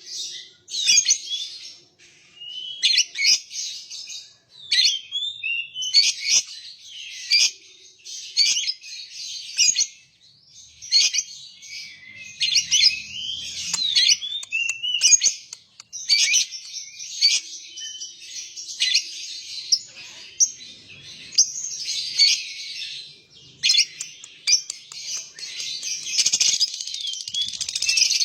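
Lovebird singing its long, rapid chattering 'ngekek' song: shrill chirps packed into bouts with short pauses between. This is the drawn-out chatter prized in Indonesian lovebird keeping.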